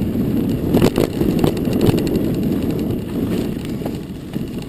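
Mountain bike riding over a dirt trail: a steady rumble of wind buffeting the handlebar-mounted camera's microphone, with a few rattling knocks from the bike over bumps about one to two seconds in.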